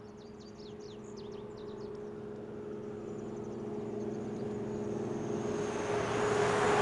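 A small pickup truck approaching along the road, its engine hum and tyre noise growing steadily louder as it nears. Birds chirp faintly in the first couple of seconds.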